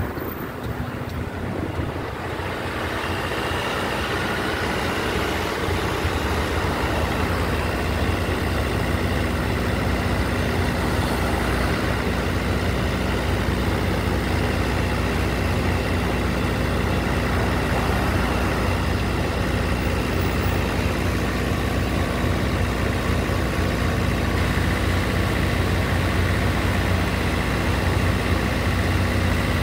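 A parked ice cream truck's motor running: a steady drone with a low hum and a faint high whine. It grows louder over the first few seconds, then holds level.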